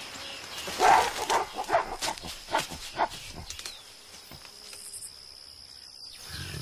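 Young mountain gorillas giving a quick run of short, sharp calls, about eight in two seconds, the first the loudest.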